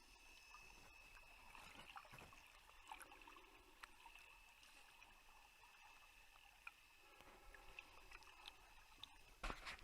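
Faint underwater sound picked up by a snorkeller's camera: scattered sharp clicks and crackles over a thin steady high tone, with a louder burst of noise near the end.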